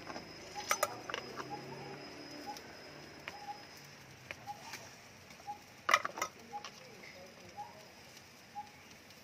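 Metal spoon and ladle clinking and knocking against a clay mortar and plastic sauce tubs as ingredients are added, with the loudest knock about six seconds in. Faint short chirps recur in the background.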